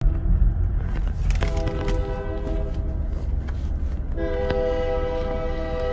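Union Pacific freight locomotive's air horn sounding for a grade crossing: two long blasts, each a chord of several steady tones, with a short break about four seconds in. Heard from inside a car over a low rumble.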